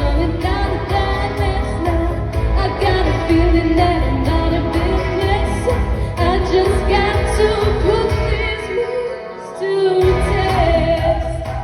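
A woman singing a pop song over band accompaniment with a steady bass; the bass drops out for about a second near the end, then returns.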